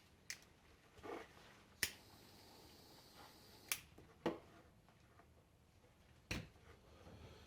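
A few sharp, isolated clicks, several seconds apart, from a lighter being flicked to melt the cut end of the nylon pull cord.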